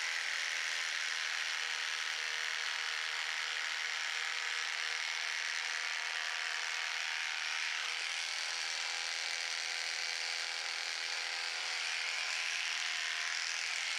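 Electric horse clippers running with a steady buzz as the blades are drawn through the horse's coat in one long unbroken stroke, cutting the straight line of a blanket clip.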